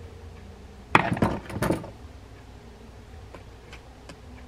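Hand tools clattering on a wooden workbench: a quick cluster of sharp knocks about a second in, lasting under a second, as one screwdriver is set down and another picked up. A few faint light ticks follow.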